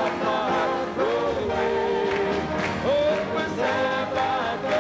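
Gospel worship music with a group of singers, sung melody lines held and gliding over a steady accompaniment.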